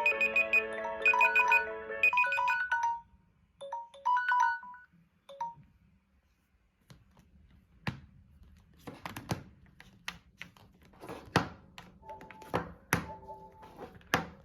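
Samsung Galaxy phone alarm or timer tone playing a melody of electronic notes, which stops about two seconds in, with a few scattered notes over the next few seconds. Later come a series of taps and knocks, with a brief run of tones near the end.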